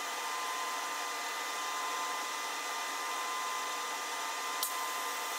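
DIY metal 3D printer running, a steady rushing noise like a fan or blower with a thin steady whine over it. A single sharp click comes about four and a half seconds in.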